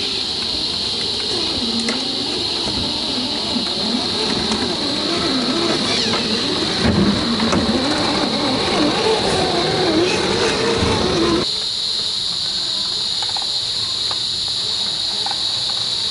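1/10-scale SCX10 III RC crawler's brushed motor and gears whining as it crawls over rocks, the pitch rising and falling with the throttle. It is loudest as the truck reaches the camera and cuts off suddenly about eleven and a half seconds in. A steady high insect drone runs underneath.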